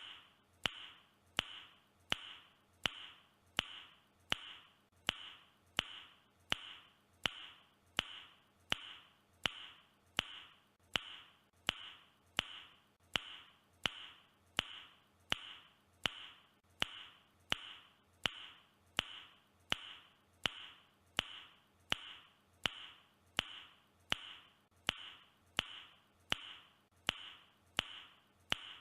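A man's tongue click, repeated at an even pace a little more than once a second. Each sharp click is followed by a brief bright ring.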